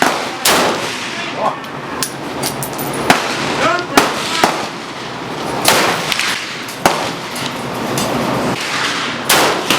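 Gunshots at a shooting range: about eight sharp shots at irregular intervals, with people talking between them.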